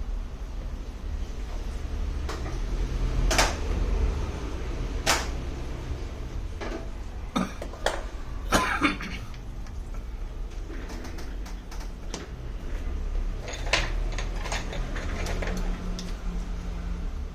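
Irregular sharp clicks and light knocks of small tools and parts being handled during a tablet repair, over a steady low hum.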